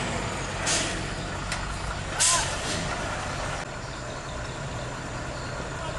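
Heavy diesel tronton truck idling with a steady low hum, with two short sharp hisses of air from its air brakes about a second and a half apart, the second one louder.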